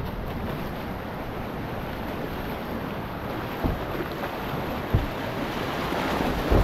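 Whitewater rapids rushing steadily, with a couple of short low thumps around the middle.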